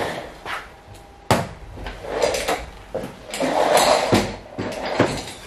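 A few short knocks and clunks with rustling, like furniture and things on a desk being handled as a person gets up and moves about in a small office.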